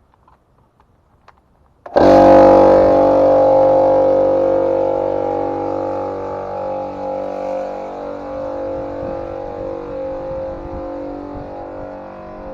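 Ridgid circular saw motor running with a steady, high-pitched whine. It starts suddenly about two seconds in and slowly grows quieter over the following ten seconds.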